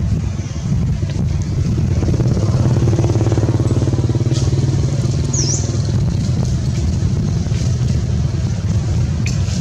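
Low, steady rumble of a motor vehicle engine running close by, swelling about two seconds in, with a brief high chirp about halfway through.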